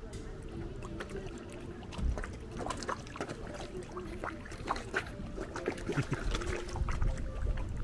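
Koi splashing and slurping at the water's surface as they crowd in to be fed: a quick, irregular run of small wet splashes and sucking sounds.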